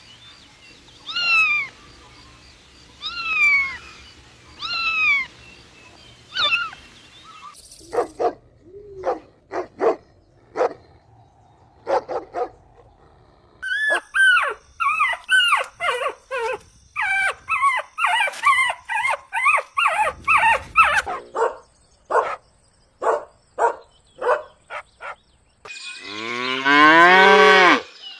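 Puppies whimpering and yipping: a string of high, falling whines, then scattered short yips and a fast run of many overlapping yaps. Near the end a cow gives one long, low moo.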